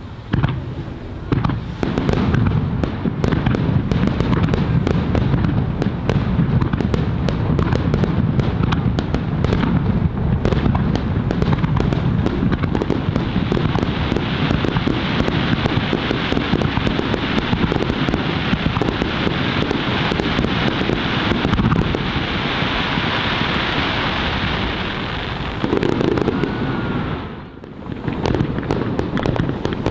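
Aerial fireworks display: a dense, continuous barrage of booming bursts and crackling shells, with a short lull near the end before it picks up again.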